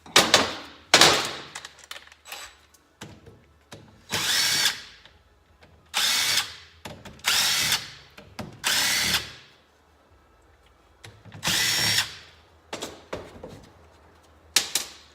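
Power drill spinning bolts out of an engine cover in about eight short whirring bursts, each half a second to a second long.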